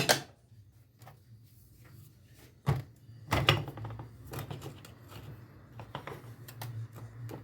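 Metal starter-motor parts being handled on a workbench: a few sharp knocks and clunks in the first half, then lighter clicks and taps, over a steady low hum.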